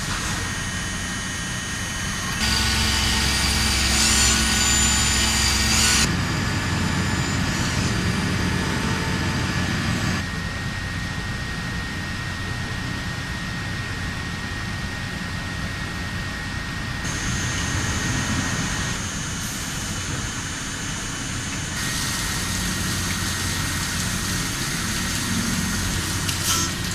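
WFL M60 MillTurn machining centre running while it machines a crankshaft: a steady machine hum with thin high whining tones. The sound changes abruptly several times, and is louder and brighter from about two to six seconds in.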